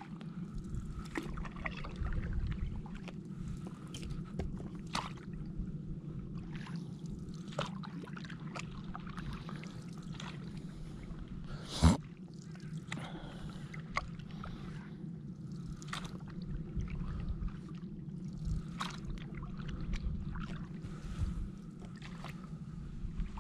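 Stand-up paddleboard paddling: the blade dips and pulls through calm water in irregular strokes, with splashes and drips, over a steady low hum. A single sharp knock about halfway through is the loudest sound.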